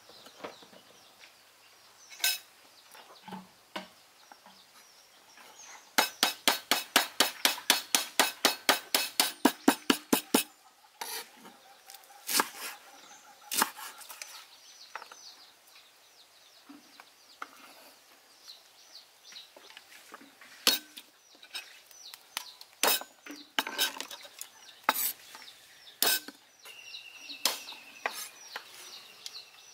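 A large kitchen knife chopping on a round wooden cutting board. A few separate knocks come first, then a fast, even run of chops, about four or five a second, for several seconds, then more scattered chops.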